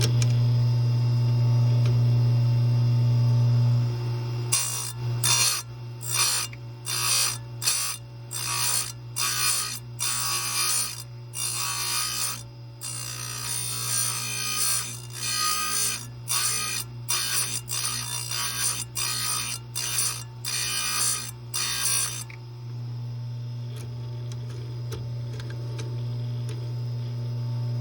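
Chain grinder's motor running with a steady hum; from about four seconds in, a series of short grinding bursts, one or two a second, as the wheel is touched lightly to the cutters to square-grind a saw chain, stopping a few seconds before the end.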